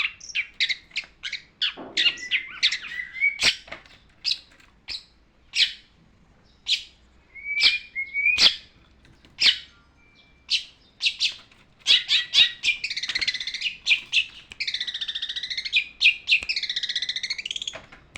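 Long-tailed shrike singing: a run of short, sharp chips and call notes, then, about two-thirds of the way through, a longer, denser chattering phrase of repeated arching notes.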